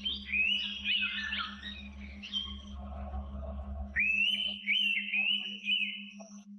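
Forest birds calling: many quick, overlapping whistled notes that rise and fall, with a fresh burst of whistles about four seconds in. Under them runs a steady low pulsing hum, about five pulses a second, and a low rumble that stops after about four and a half seconds.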